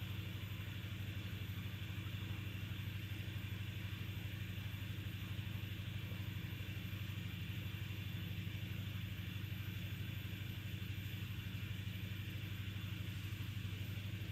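A machine running with a steady low hum, unchanging throughout.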